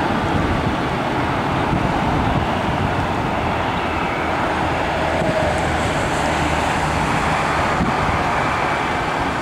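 Boeing 777-300 jet engines on short final and touchdown: a loud, steady rush of jet noise.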